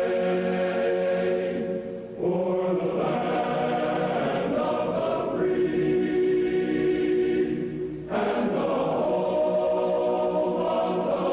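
Slow choral music: long held chords, each lasting a few seconds, shifting about two seconds in and again about eight seconds in.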